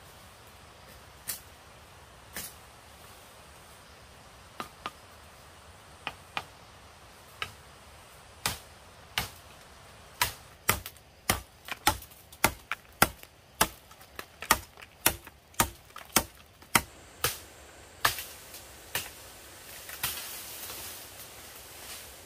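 A machete chopping into a standing green bamboo stalk: sharp single strikes, a few at first, then a quick run of about two a second. A rustle of leaves follows near the end.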